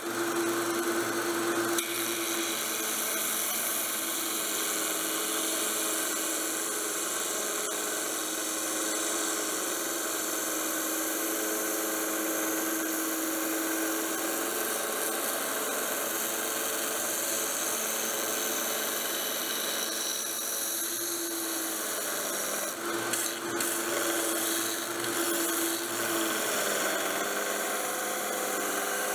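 Small bench belt sander running steadily, with the rasp of a piece of wood being sanded against the moving belt.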